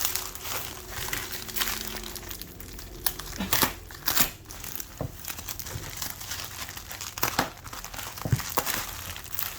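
Plastic packaging and tape crinkling and crackling as a taped parcel is unwrapped by hand, with a few louder sharp snaps and tearing sounds along the way.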